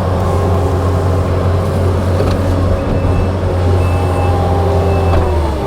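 Diesel engine of a Kubota tracked skid steer running hard at a steady pitch, then dropping in pitch near the end. A short high beep repeats about once a second from about halfway through.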